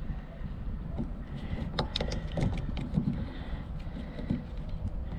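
Handling noise of white thread seal tape being wrapped onto the threads of a brass pipe fitting: a run of small clicks and crinkles, thickest in the middle, over a low steady rumble.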